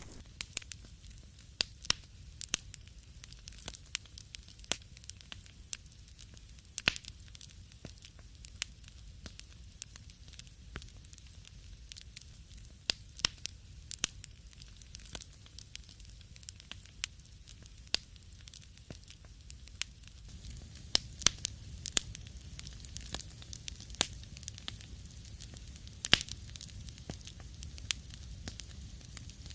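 Wood fire crackling in a fireplace: irregular sharp pops and snaps, some louder than others, over a low steady rumble of the burning fire.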